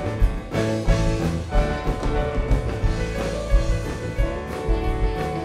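Live rock band playing an instrumental passage: electric guitars, acoustic guitar, keyboards and drum kit, with regular drum hits under sustained guitar and keyboard notes.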